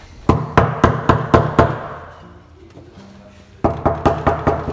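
Quick knocking on a door, about four or five knocks a second, in two runs of about six knocks. The second run starts a little past halfway through.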